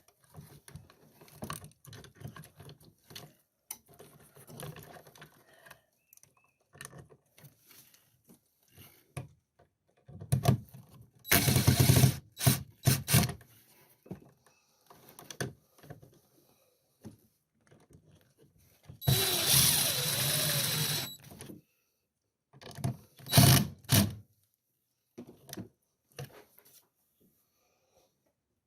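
Small clicks and handling noises from work on an outlet box, broken twice by a short run of a power drill or driver, the longer one about two seconds long with a steady whine.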